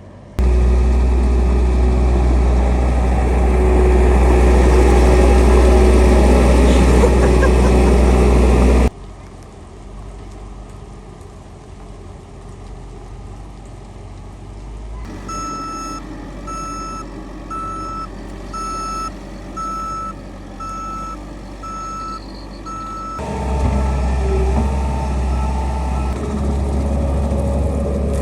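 A skid steer's engine runs loud and steady, then cuts off abruptly to a quieter engine sound. Midway, the backup alarm beeps about once a second for roughly eight seconds as the machine reverses. The engine then grows louder again near the end.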